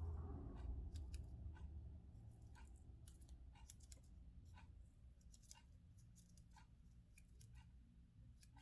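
Faint, irregular light clicks, about one or two a second, from handling small objects such as earbuds or a phone, over a low room hum that fades during the first two seconds.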